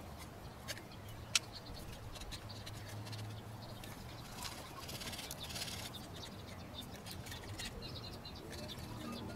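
Hand scraper with a carbide blade scratching across the cast-iron deck of a Toyota 1KZ-TE engine block, in short scratchy strokes with a few sharp clicks, the loudest about a second in.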